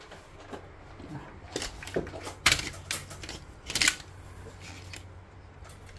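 Hard plastic clicks and taps as an air conditioner's control board and its plastic housing are handled and fitted back together, with two sharper clicks about two and a half and four seconds in.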